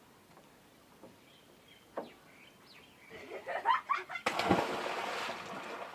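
A person jumping into water: a few short shouts, then a big splash about four seconds in that washes on and fades.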